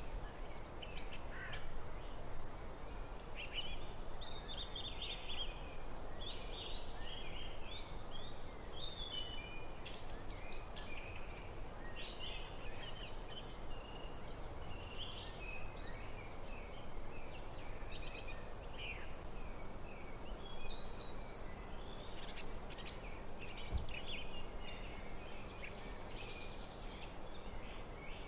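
Wild birds singing, with many short overlapping chirps and warbles, over a steady low background hiss of outdoor ambience.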